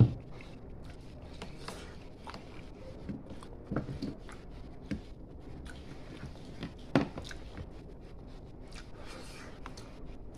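Eating sounds: hands tearing soft braised pork head meat apart on a plate, with chewing and scattered small clicks and taps. A cup is set down on the table with a thump at the very start, and a sharper click comes about seven seconds in.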